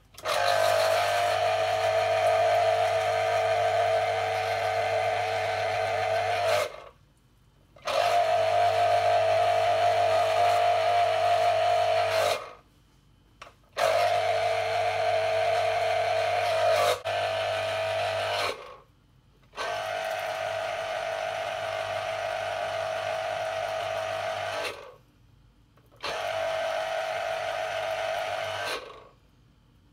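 Electric citrus juicer's motor running as orange halves are pressed onto its spinning reamer cone: a steady whine with a low hum, in five runs of a few seconds each that start and stop suddenly.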